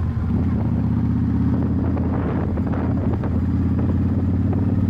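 Yamaha Virago 1100's V-twin engine running steadily at cruise, heard from the rider's seat while the bike is ridden down the road.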